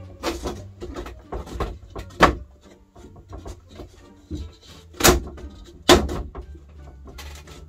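Wooden back panel of a chest of drawers being pushed and knocked into its grooves by hand in a dry fit: a run of wooden knocks and rubbing, the loudest knocks about two, five and six seconds in.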